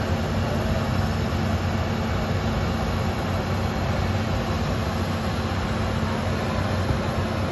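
A vehicle engine running steadily, a constant low hum under an even wash of noise.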